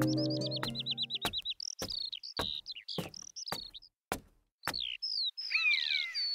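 Songbirds chirping and trilling, with a fast run of high falling notes at the start and descending whistles near the end. Under them are evenly spaced footsteps, about one every 0.6 seconds. A harp piece dies away in the first second.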